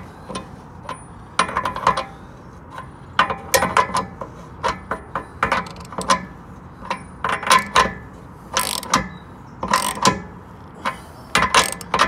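Half-inch drive ratchet clicking in short runs of rapid pawl clicks, several times over, as it tightens a new anode rod into a Suburban RV water heater tank stroke by stroke with a 1-1/16 inch socket on an extension.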